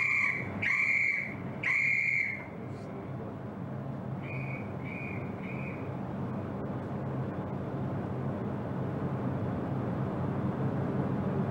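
A shipboard whistle sounds three blasts in quick succession, each a steady high tone lasting about two-thirds of a second. About two seconds later three fainter, shorter blasts answer. This is the three-blast 'carry on' signal that ships exchange when rendering passing honors. A steady low machinery hum runs underneath.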